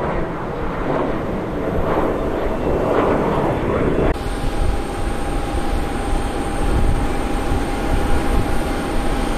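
Jet airliner engines running at takeoff power as the plane rolls down the runway, a loud rushing rumble. About four seconds in the sound changes abruptly to a steadier rumble with a thin steady whine over it.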